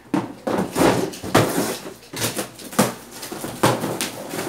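Cardboard shipping boxes being moved and torn open by hand: irregular scraping, rustling and tearing noises, with a sharper peak about once a second.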